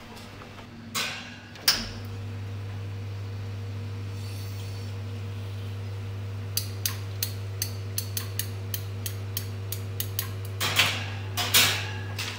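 Commercial espresso machine running, its pump giving a steady low hum that starts after two knocks about a second in. Midway there is a run of about a dozen light metallic clicks, about three a second, and near the end two louder clatters.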